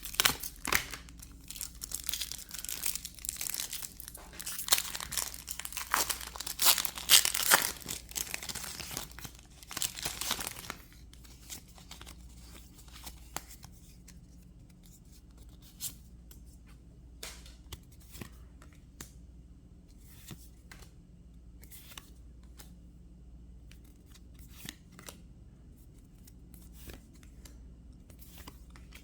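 Foil Pokémon booster pack wrapper being torn open and crinkled, loud and crackly for about the first ten seconds. After that come only scattered soft clicks and slides as the trading cards are handled.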